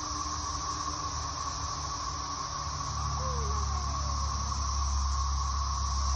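Steady insect drone over a low, even rumble, with a couple of faint short chirps about three seconds in.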